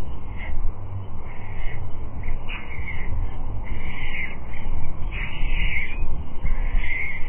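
White stork chicks giving begging calls: a run of short, hoarse, cat-like calls, several in a row, over a steady low rumble.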